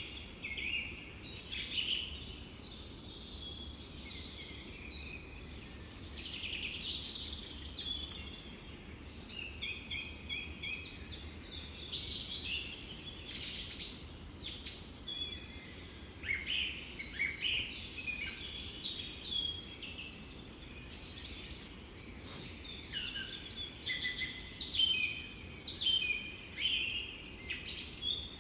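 Small birds chirping and singing, many short, high calls overlapping throughout, over a low, steady background rumble.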